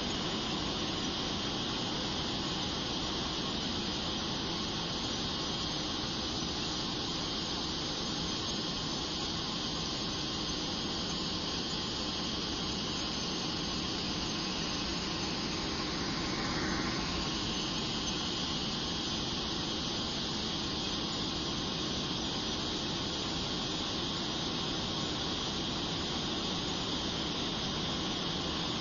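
Steady in-cockpit noise of a Blue Angels F/A-18 jet in flight: a constant rush of engine and airflow with a high-pitched whine on top. The whine briefly dips in pitch about seventeen seconds in, then settles slightly higher.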